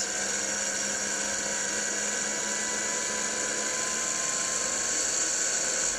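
Small electric spin motor driving a balancing-rig rotor at speed, a steady high-pitched whine and hiss. The rotor carries a washer taped on as a deliberate unbalance.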